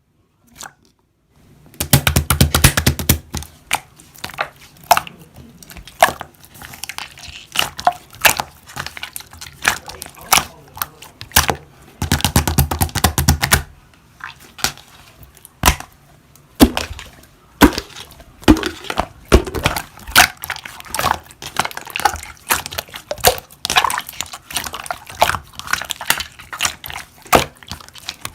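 Slime being squished and pressed by hand, making many rapid crisp clicks and pops, with two longer, denser runs of clicking near the start and about halfway through.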